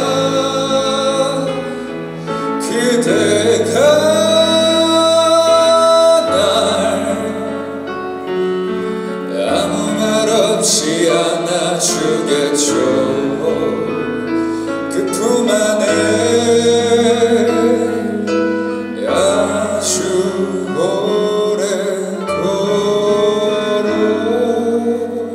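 A man singing a slow song live into a microphone over a backing track, holding long notes.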